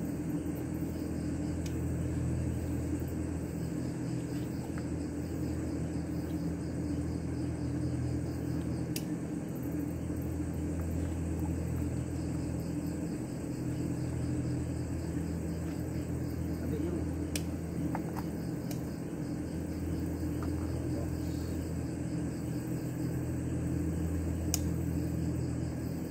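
Steady low machine hum, with faint, evenly pulsing insect chirring high up and a few sharp clicks.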